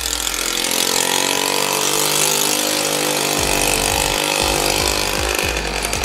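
Suzuki JR50 mini dirt bike's 49cc two-stroke single-cylinder engine running and revving as the bike rides off, its pitch falling and rising.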